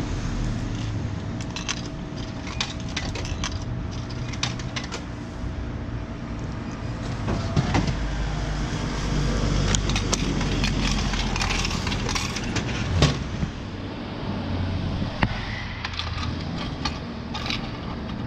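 Street ambience with road traffic, a heavier passing rumble in the middle, overlaid by scattered light clicks and knocks; a sharper knock stands out about thirteen seconds in.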